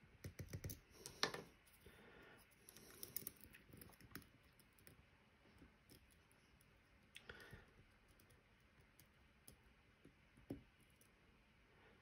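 Faint, scattered clicks and light scraping of a steel lock pick probing the pin stacks inside a Medeco M3 lock cylinder under tension. A few sharper clicks stand out, about a second in, around seven seconds in, and near the end.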